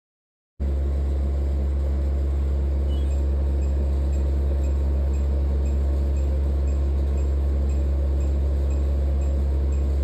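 Diode laser hair-removal machine running: a steady low hum that starts abruptly about half a second in, with faint high pips about twice a second.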